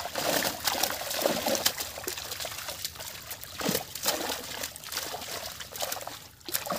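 Live fish thrashing in a seine net pocket in shallow water, with water trickling and many irregular sharp splashes.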